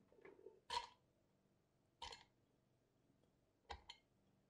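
Chunks of peeled beetroot dropping from a bowl into a blender jug onto ice cubes: a few soft knocks, with a quick double knock near the end.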